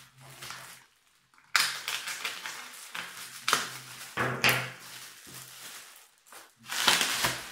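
Plastic bubble wrap crinkling and rustling in irregular bursts as it is pulled off an item by hand, the loudest burst near the end.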